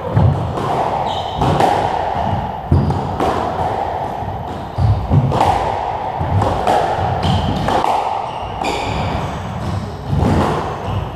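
Squash rally: the ball cracking off rackets and slapping the court walls about once every second or so, with short high squeaks of shoes on the wooden floor.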